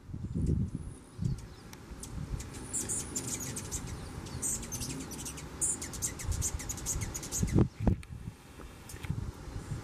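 Hummingbirds at a feeder giving high, rapid chittering calls, busiest between about three and six seconds in. Under them, wind rumbles on the microphone, with two louder gusts near the end.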